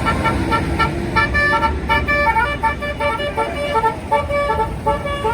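Bus 'telolet basuri' musical horn playing a quick melody of short notes, several tones at once, changing pitch several times a second, over the rumble of the bus and traffic.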